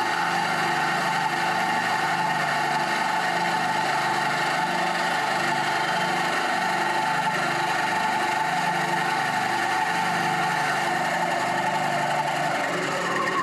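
Bandsaw running steadily while cutting a shape out of an African mahogany board. The cutting sound eases near the end.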